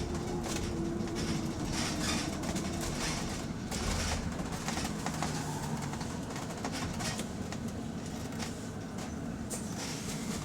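Electric bus coasting off the accelerator, heard from inside: a steady hum that fades out about three seconds in, then a lower hum for a moment, over road rumble and cabin rattles. This is the odd noise the bus makes only when it is moving without throttle, which worries the passenger as a possible electrical fault.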